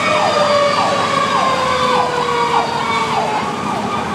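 Fire truck siren heard from inside the cab: an electronic siren in a fast yelp, rising and falling about twice a second, over a mechanical siren's tone slowly winding down in pitch.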